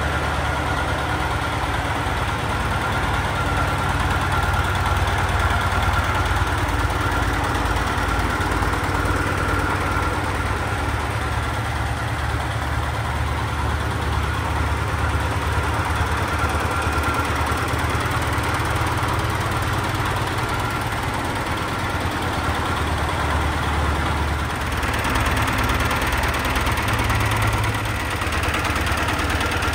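1958 Massey tractor engine idling steadily, with an even low firing beat throughout.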